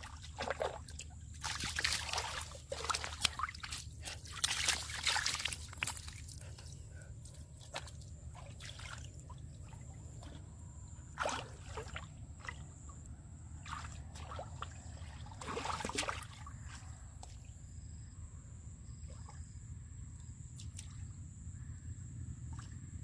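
Hands sloshing and splashing through shallow muddy water while groping for fish, in irregular bursts. The loudest run comes in the first few seconds, with two shorter splashes later, over a steady low rumble.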